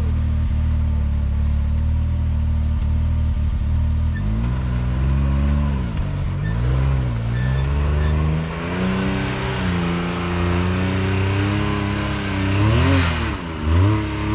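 Side-by-side UTV's three-cylinder engine running steadily, then from about four seconds in revving up and down again and again under throttle on a trail climb, with a quick sharp rev and drop near the end.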